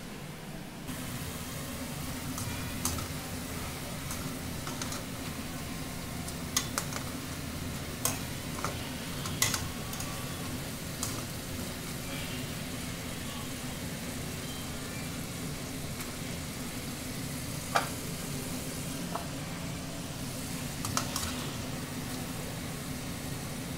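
Sweet potato fries sizzling steadily in hot oil in a stainless steel pot, with a steady low hum underneath. A handful of sharp clicks of a metal utensil against the pot are scattered through.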